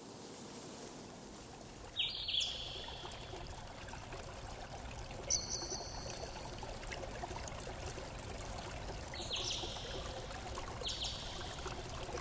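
Steady running water, like a small stream, with four short bird calls scattered over it.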